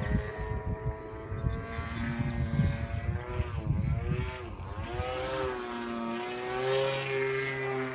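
Two-stroke gas engine of a radio-controlled aerobatic model airplane flying at a distance, its pitch dipping about halfway through as the throttle comes back, then rising and holding steady.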